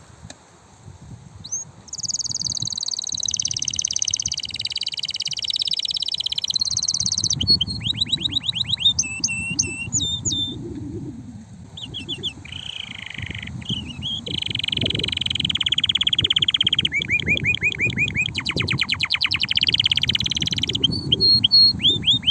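Domestic male canary singing an excited, loud song: long rolling tours alternate with fast trills and quick whistled glides, starting about two seconds in after a brief pause. It is the intense song of a male in breeding condition.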